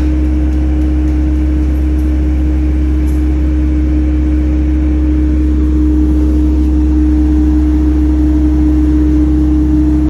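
A diesel engine idling steadily: a constant low drone with a steady hum above it.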